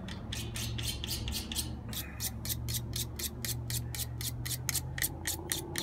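Small handheld knife sharpener brushed quickly along the edge of a folding knife's blade in short, even scraping strokes, about six or seven a second. The blade is being sharpened with light strokes that match its thick bevel.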